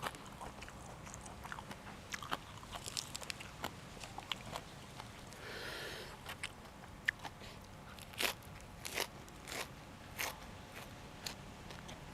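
Crisp crunching bites and chewing of raw vegetables close to the microphone: scattered sharp crunches, with a run of louder ones about eight to ten seconds in.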